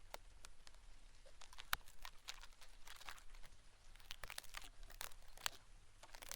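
Horsehair ear-cleaning brush rubbing in an ear, recorded close in 3D binaural sound: faint, irregular crackling and scratching strokes.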